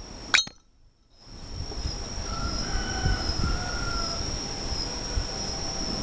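A Zippo lighter's hinged brass lid flipped open with one sharp metallic click and a brief ring about a third of a second in. A steady high-pitched insect drone runs behind it.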